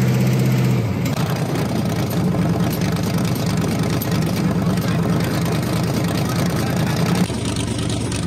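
Chrysler 440 big-block V8 of a 1931 Ford Model A rat rod running, loud and steady for the first second. Its note then changes as the car drives along, and changes again near the end.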